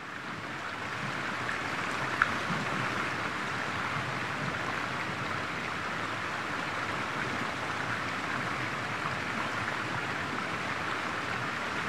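Steady rush of flowing water, a river or stream, fading in over the first couple of seconds, with a single sharp click about two seconds in.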